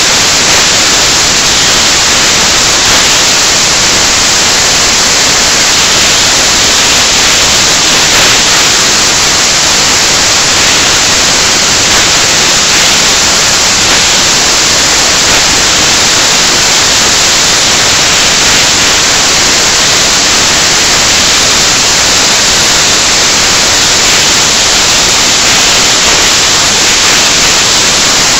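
Loud, steady static hiss like white noise, drowning out any sound from the match.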